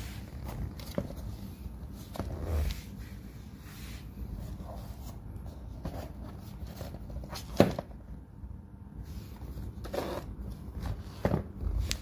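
Handling noise as a pair of running shoes is picked up and moved about: scattered soft knocks and rustles over a low steady rumble, with one sharper knock about seven and a half seconds in.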